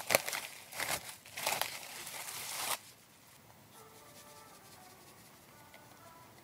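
Plastic cling wrap crinkling as it is peeled off the rim of a glass mixing bowl, for about the first three seconds.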